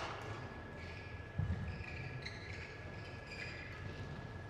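Badminton court shoes squeaking on the court mat: a series of short, high squeaks as players shift their feet between points, with one soft thump about a second and a half in. A faint steady high whine runs underneath.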